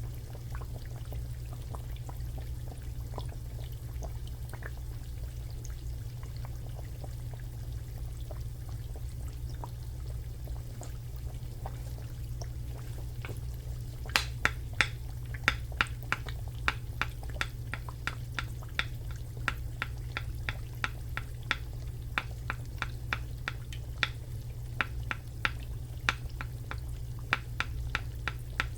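Shrimp frying in hot oil: a steady low hum underneath, faint scattered ticks at first, then from about halfway a busy, irregular crackling and popping of oil, several sharp pops a second.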